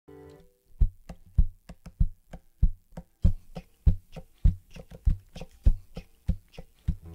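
Hands slapping and tapping the body of an acoustic guitar as a percussion beat: a low thump a little under twice a second with lighter taps between, starting about a second in.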